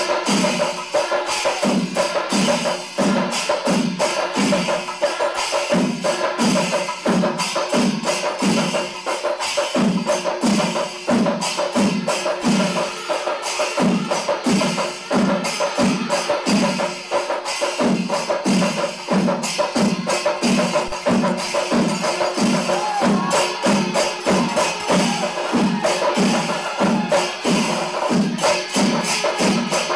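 Chenda melam: a large ensemble of Kerala chenda drums beaten with sticks in a fast, dense roll over a steady low beat of about two strokes a second, with cymbals clashing throughout.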